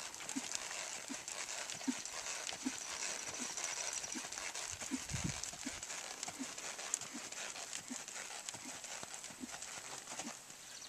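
Quarter Horse hoofbeats on arena sand, soft and muffled, in a slow, even rhythm of about one beat every three-quarters of a second.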